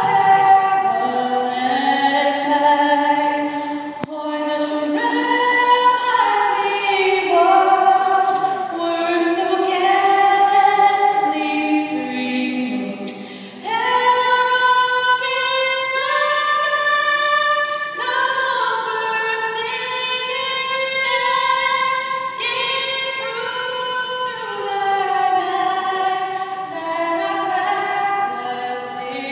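A cappella vocal group singing a national anthem unaccompanied, in long held notes with several voices sounding together.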